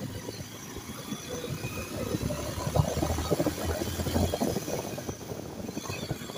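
Motorcycle engine running as the bike is ridden, its low hum getting louder from about two seconds in and easing again near the end.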